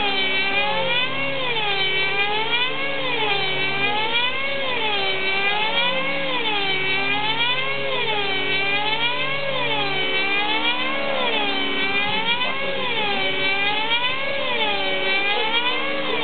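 Control-line aerobatic model airplane's motor and propeller running at flying speed as it circles on its lines around the pilot. Its pitch rises and falls in a steady, repeating wave.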